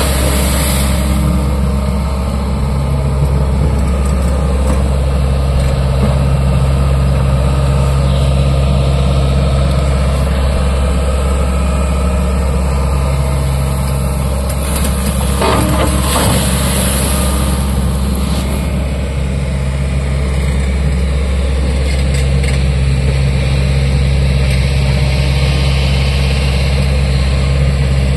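A Kobelco hydraulic excavator's diesel engine runs steadily under work as a low, even drone. Right at the start water splashes as the skeleton bucket sweeps through a puddle, and a louder rushing noise comes for about two seconds around the 16-second mark.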